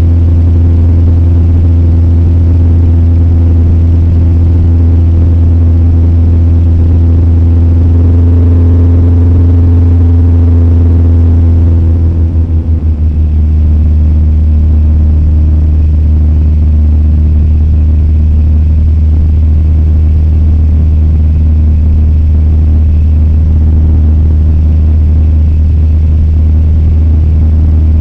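Cessna 172's engine and propeller droning steadily inside the cabin in cruise flight. About twelve seconds in, the drone pulses and dips briefly, then carries on with a slightly changed tone.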